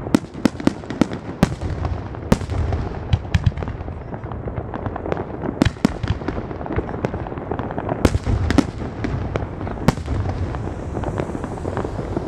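Aerial firework shells bursting in quick succession: many sharp bangs, some much louder than others, over a continuous crackle and low rumble.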